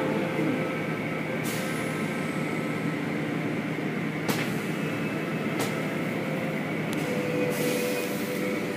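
Automatic tunnel car wash running, heard from inside the car: a steady mechanical rumble and hum, with a hiss that swells twice and a few sharp knocks around the middle.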